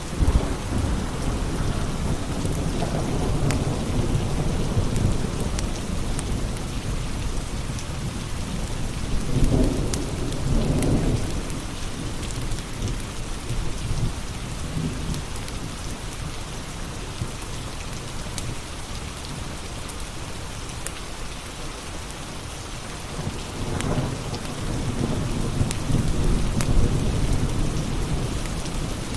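Steady rain with rolls of thunder, one at the start, another about ten seconds in and a longer one near the end, over scattered small pops of a crackling wood fire.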